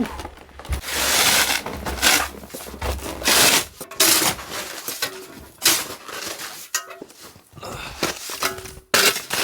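Snow shovel digging and scraping into deep, crusted snow, a series of irregular crunches and scrapes. The snow has an icy crust layer.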